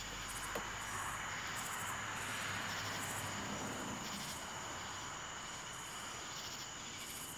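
Crickets trilling steadily, with higher pulsing chirps coming and going at uneven intervals, over a faint even rumble.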